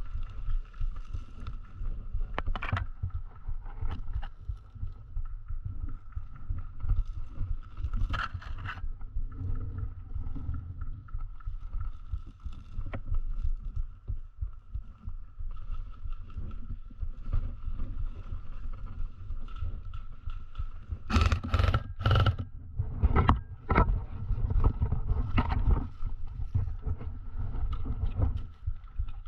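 Steady low rumble of wind and movement on a body-worn camera as an airsoft player advances, with a faint steady whine underneath. About three-quarters of the way through comes a quick cluster of sharp cracks, airsoft gunfire.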